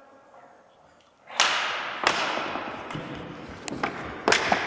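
Several sharp knocks of indoor hockey sticks striking the hard ball, echoing in a large sports hall. The first, about a second and a half in, is the loudest, and smaller taps follow near the end.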